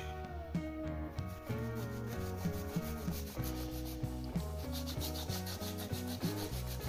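A ripe tomato rubbed rapidly back and forth on a plastic hand grater, making quick repeated rasping strokes. A tune plays underneath.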